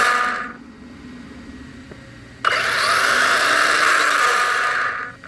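Castle Creations SCT 1410 brushless motor and drivetrain of an RC truck whining under forward throttle, dropping off about half a second in as it is braked, then spinning up again suddenly about two and a half seconds in and cutting off just before the end.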